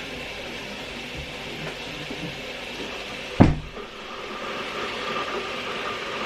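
Steady hiss of dumplings frying in hot oil in a tin pot, with one sharp knock, the loudest sound, about three and a half seconds in.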